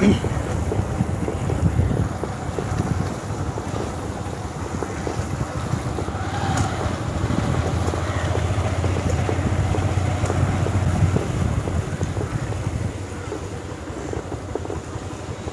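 Motorcycle engine running at low riding speed, with wind rushing over the microphone.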